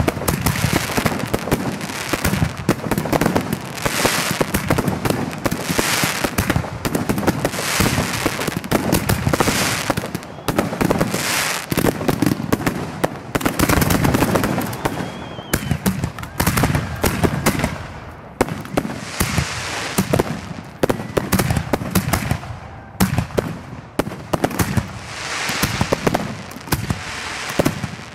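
Aerial fireworks display: a continuous barrage of launches, shell bursts and crackling, many reports a second, thinning out a little about halfway through before picking up again.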